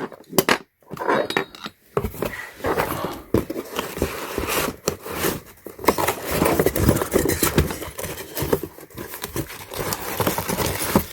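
Small metal mounting bolts and washers clinking together as they are handled, with crinkling of the plastic packaging, in many irregular clicks and rustles.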